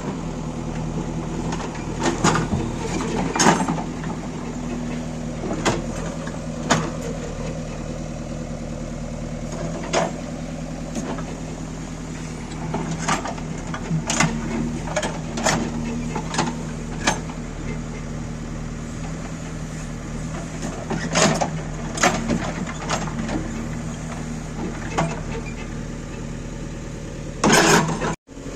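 JCB 3DX backhoe loader's diesel engine running steadily while working, with irregular sharp metal knocks and clanks from the bucket and arm. The sound breaks off abruptly just before the end.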